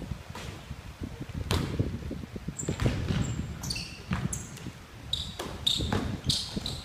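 A basketball bounces on a hardwood gym court amid players' footfalls, and sneakers squeak sharply several times in the second half, all echoing in a large gym hall.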